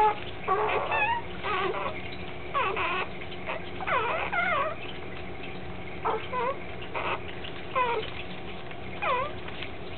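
Newborn Labrador retriever puppies, under a day old, squeaking and whining as they nurse, the "singing" of neonate pups. Short high calls that slide up and down in pitch come about once a second, several pups at times calling over one another.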